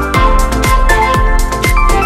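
Background music: an upbeat electronic track with a steady kick drum about twice a second under a bright synth melody.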